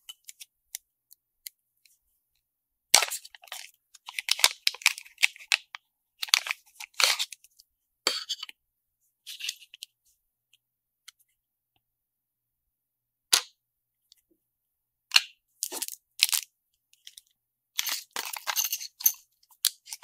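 Small plastic bags of kit parts crinkling and rustling as they are handled, in several short bursts with silent gaps, and one sharp click about 13 seconds in.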